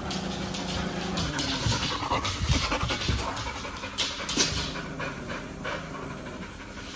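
Golden retriever panting close by, a steady run of short breaths.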